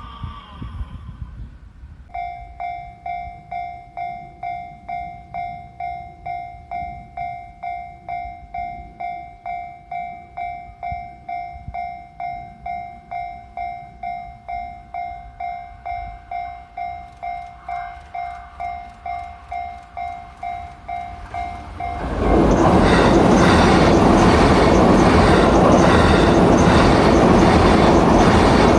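Japanese level-crossing warning bell ringing at about two strikes a second, starting about two seconds in. About three-quarters of the way through, a train passes loudly over the crossing with a rush of wheel and rail noise and some clickety-clack, covering the bell.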